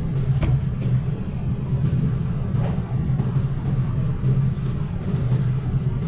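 A steady low machine-like rumble, with a faint click about half a second in and another about two and a half seconds in.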